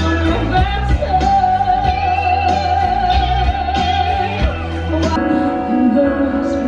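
Live stage-show music: a singer holds one long high note over a steady deep bass. About five seconds in the bass drops out and the music turns to lower, sustained chords.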